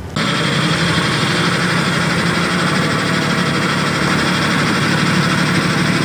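Dump truck engine running steadily as the truck tips its load of earth.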